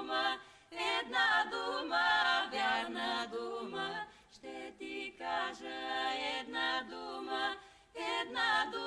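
Background music: a cappella vocal harmony, several voices singing sustained chords in short phrases with brief pauses between them.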